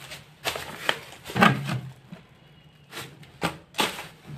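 Plastic carrier bag rustling, with short clicks and light knocks as packets and plastic jars are handled, coming in about six brief bursts.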